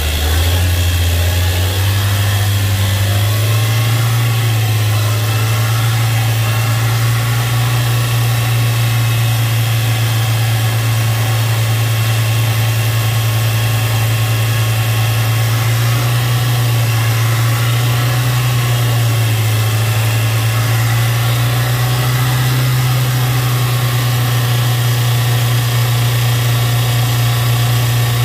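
Ford 1.6 L EcoBoost turbocharged four-cylinder engine running at about 3000 rpm. Its pitch climbs over the first few seconds as it comes up to speed, dips briefly about two-thirds of the way through, and otherwise holds steady.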